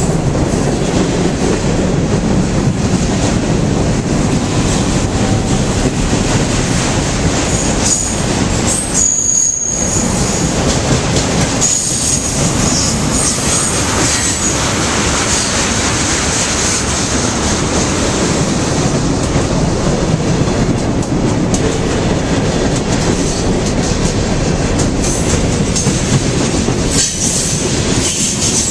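Mixed freight train rolling past at close range: a steady rumble and clatter of steel wheels on the rails, with a high-pitched wheel squeal about nine to thirteen seconds in.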